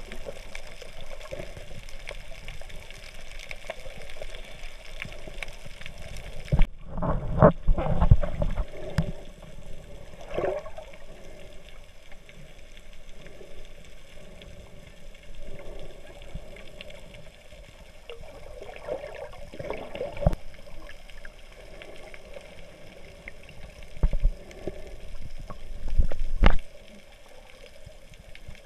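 Muffled underwater water noise with gurgling and sloshing, heard through an underwater camera. Dull thumps come in a cluster about a quarter of the way in and singly later on.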